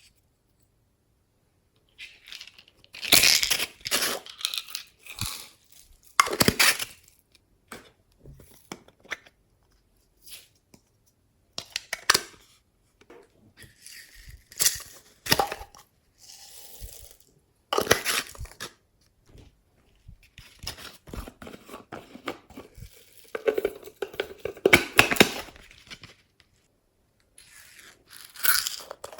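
Glossy slime being squished and stretched by hand, giving crackly, tearing and crunching sounds in irregular bursts with short quiet gaps between them.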